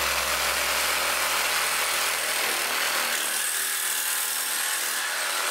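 20 V cordless jigsaw (NRT-Pro JV-65 DC) with a metal-cutting blade sawing through hollow aluminium section: a steady, even cutting noise.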